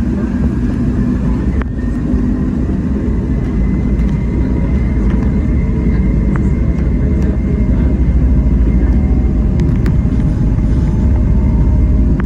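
Cabin noise of a Boeing 717 on its takeoff roll. A low rumble of engines and wheels on the runway grows steadily louder under a faint, slightly rising engine whine, with a few light clicks and rattles.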